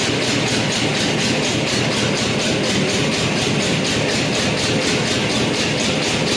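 A machine runs steadily and loudly, with a regular beat of about five pulses a second.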